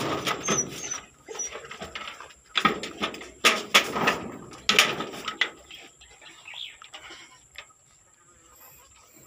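A chained dog jumping and scrambling about, its metal chain rattling and scraping in loud, irregular bursts, which die down after about six seconds.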